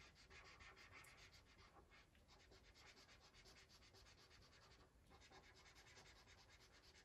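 Faint scratchy rubbing of a felt-tip marker colouring on paper in quick back-and-forth strokes, pausing briefly about five seconds in.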